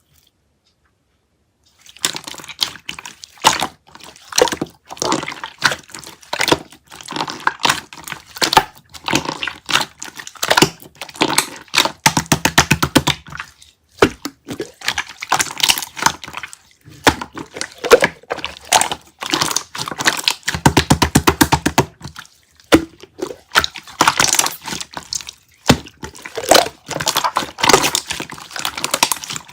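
Clear slime being squeezed and pressed by hand, giving a stream of wet clicks and pops. Twice, around twelve and twenty-one seconds in, it breaks into a burst of fast, evenly spaced clicking.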